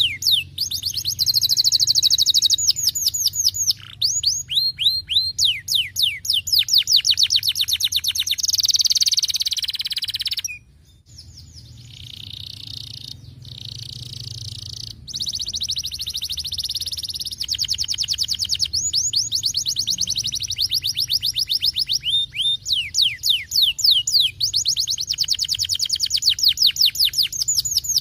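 Canary singing: rapid trills of short repeated downward-sliding notes, high-pitched, broken by a short pause a little over ten seconds in, after which the song turns to softer, denser rolling trills before the fast sliding trills return.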